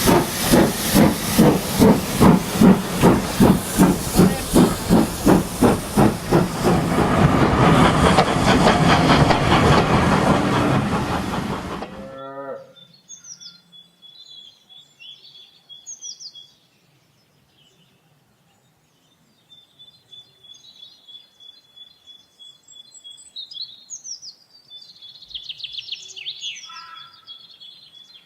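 Steam locomotive working hard: rhythmic exhaust chuffing at about three beats a second, merging into a steady rush of steam before stopping suddenly with a short falling tone. After that, quiet birdsong with chirps and short whistles.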